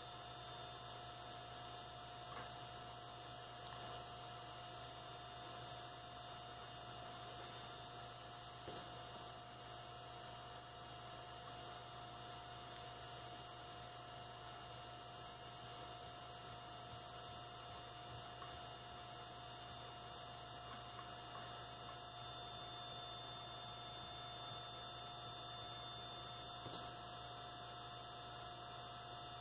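Quiet, steady electrical hum with a faint constant whine over it: room tone.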